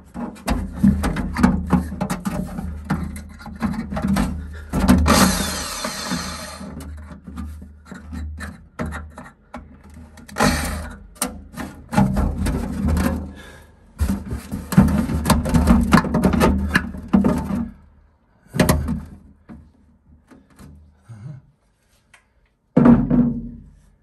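Corded electric hand drill boring a hole, running in several bursts that stop and restart, with the bit grinding and whining in the hole. Two short spurts come near the end.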